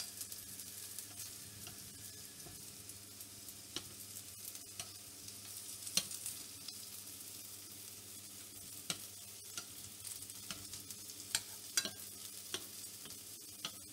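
Cheese gyoza sizzling steadily in hot oil in a non-stick frying pan, with a few sharp clicks of metal tongs as the gyoza are turned over, browned on one side.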